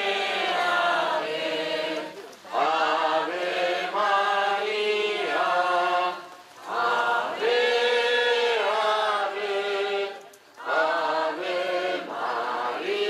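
A group of worshippers singing a Marian hymn together during the rosary, in sung phrases of a few seconds with short pauses for breath between them.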